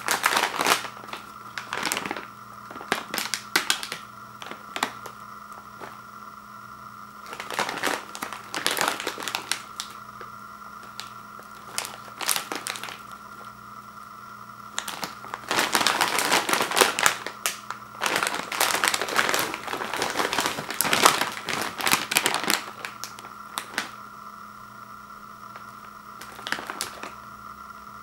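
Sealed plastic chip bag of Takis crinkling as it is handled and turned over, in irregular bursts with short pauses, the longest stretch of crinkling in the second half. A faint steady hum lies underneath.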